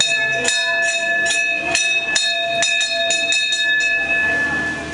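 Hindu temple bell struck repeatedly, about two to three strikes a second, quickening a little before it stops about four seconds in and rings out.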